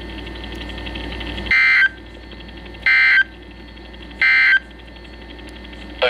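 Midland NOAA weather radio sounding the EAS end-of-message code: three short, shrill digital data bursts about a second and a half apart, with faint static hiss between them. The bursts mark the end of the tornado warning broadcast.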